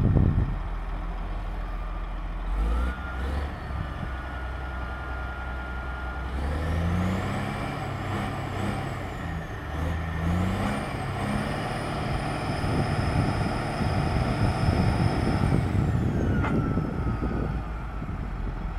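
Bulldozer's diesel engine working under load, revving up and down several times from about six seconds in, with a high whine that climbs with the revs, holds, then falls away near the end.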